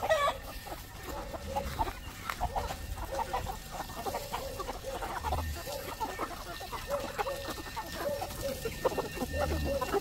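Chickens clucking: many short, overlapping calls from a flock of hens and their grown chicks.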